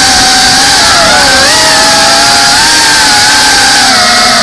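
FPV drone's brushless motors and propellers whining, the pitch wavering up and down as the throttle changes, recorded close up by the camera on the drone.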